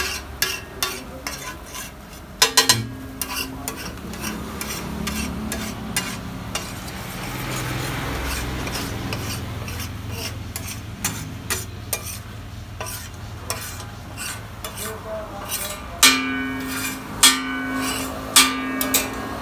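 Metal spatula scraping and stirring an egg mixture on a large flat griddle (tawa), with a light sizzle. Near the end come three louder, ringing scrapes of the spatula against the griddle's metal as the egg is scooped up.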